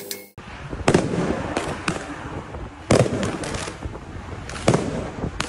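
Fireworks fired from a drifting car: about eight sharp bangs at irregular spacing, over a steady noisy rush between them.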